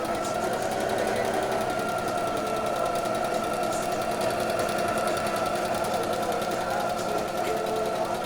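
Brother Comfort 25 household sewing machine stitching at a steady speed, its motor whining evenly over a rapid, regular needle beat. It runs smoothly, working without faults after repair.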